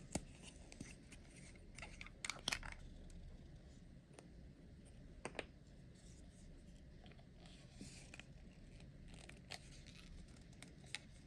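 Faint handling noises: a few short plastic clicks and light rustles as hands handle a plastic bottle, the loudest cluster of clicks about two and a half seconds in, with quiet room tone between.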